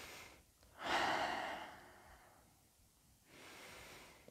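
A woman's slow, audible yoga breathing while holding a seated spinal twist: a louder breath about a second in that fades over about a second, then a softer breath near the end.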